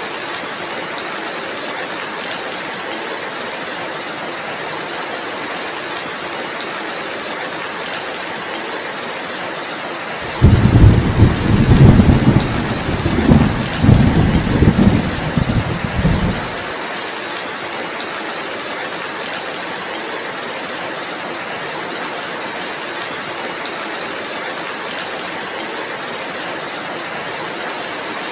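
Heavy rain falling in a steady hiss, with a roll of thunder about ten seconds in that rumbles low for about six seconds and then fades back into the rain.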